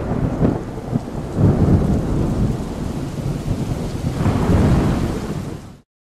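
Thunderstorm: thunder rumbling over steady rain, swelling a few times, then fading out to silence near the end.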